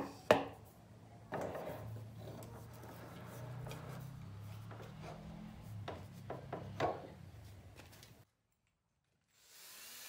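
A plywood blank knocked down twice onto a wooden workbench, then several seconds of wood rubbing and scraping with a few knocks as it is worked into the bench vise. The sound cuts off abruptly about eight seconds in, and a steady hiss begins near the end.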